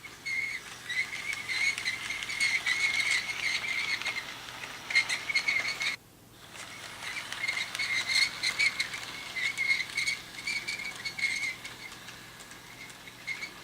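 Rapid high-pitched chirping that runs in dense trills, breaks off abruptly about six seconds in and starts again moments later.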